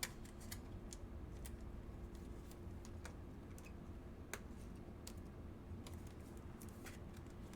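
Faint, scattered light clicks and taps of trading cards being handled and sorted, over a low steady hum.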